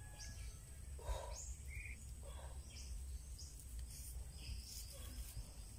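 Quiet outdoor background noise: a faint steady high tone and low hum, with a few brief soft sounds scattered through it.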